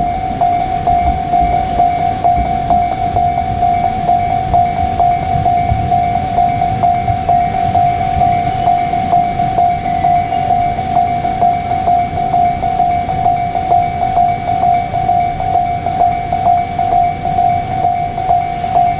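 Japanese level-crossing alarm ringing: a steady, pulsing electronic tone. Beneath it runs the low rumble of a JR Kyushu 787 series train on the line, with faint regular clicks.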